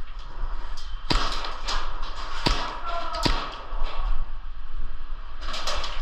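Sharp cracks of an airsoft gas pistol firing single shots during an indoor close-quarters game: four spaced shots, then a quick run of several near the end.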